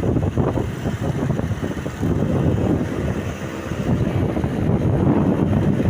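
Wind buffeting the microphone over the rumble of road traffic, a heavy vehicle's engine and tyres going by; the level rises and falls unevenly.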